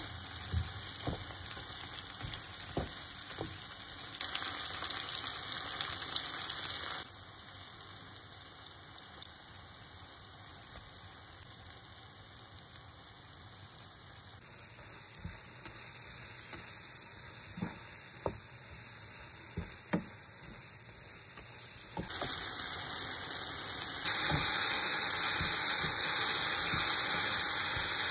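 Chopped tomatoes and onions sizzling in oil in a nonstick pan, with a wooden spatula stirring and knocking against the pan now and then. The sizzle is louder in the last few seconds.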